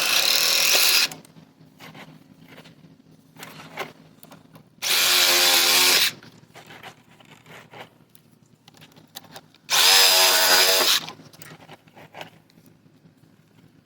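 Power drill run in three short bursts of about a second each, roughly five seconds apart, spinning up quickly each time, as fasteners are taken out of an HVAC condenser's sheet-metal casing.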